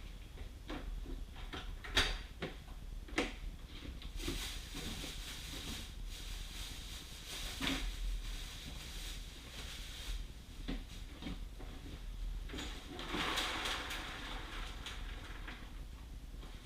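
Scattered clicks and knocks, the sharpest two about two and three seconds in, with two stretches of rustling: household handling noises.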